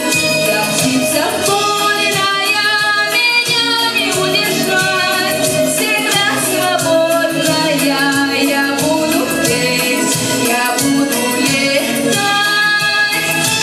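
A female voice singing a pop song over a backing track with percussion.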